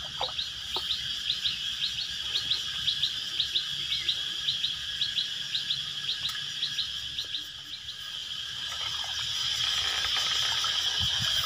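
Outdoor wildlife ambience: a rapid, evenly repeated series of short, high chirps, about three a second, stops about seven seconds in. A steady, high insect buzz then swells and carries on to the end.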